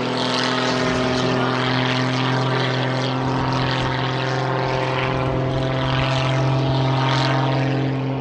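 Radio-controlled model aircraft engine running in flight with a loud, steady drone that holds one pitch throughout.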